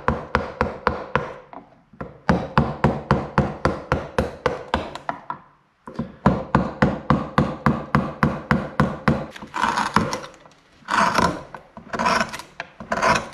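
Wooden mallet driving a chisel into a hard elm bowl blank to hollow it out: rapid sharp knocks, about four a second, in three runs with short pauses. Near the end come a few longer scraping strokes.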